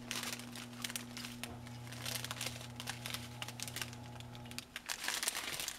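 Small plastic bags of diamond painting drills crinkling and rustling as they are handled and sorted, over a steady low hum that stops a little before the end.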